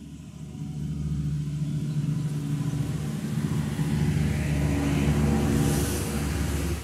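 An engine running, a steady low hum that grows louder over the first few seconds, with a hiss rising near the end before it cuts off suddenly.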